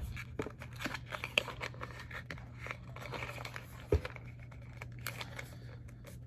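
Packaging of an eyeshadow palette being handled and opened: irregular rustling and small clicks, with one sharper click about four seconds in, over a faint steady low hum.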